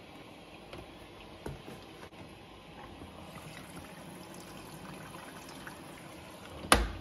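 Front-loading washing machine taking in water at the start of its wash, a faint trickle and pour with the detergent drawer pulled open while liquid bleach is added. One sharp click near the end.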